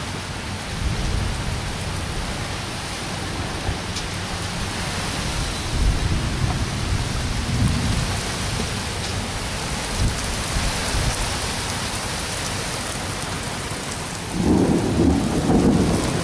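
Heavy thunderstorm rain pouring steadily, with thunder rumbling several times and a louder rumble near the end.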